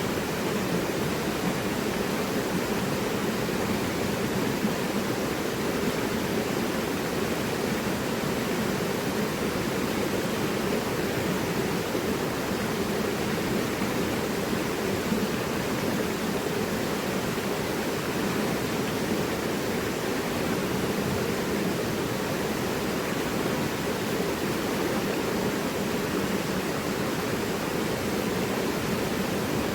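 Mountain river rushing over rocks: a steady, unbroken rush of water.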